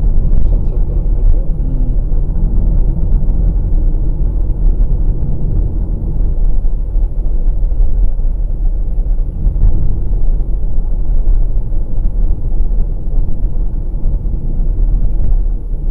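Steady low rumble of road and tyre noise, with engine drone, heard inside the cabin of a 2020 VW Passat Variant 1.6 TDI diesel driving at motorway speed.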